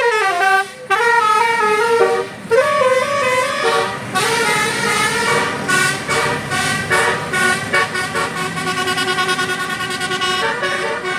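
Bus 'telolet Basuri' horn, a multi-trumpet melodic air horn, playing a quick tune of notes that jump up and down in steps. It breaks off briefly twice in the first few seconds, then keeps going with several notes sounding together.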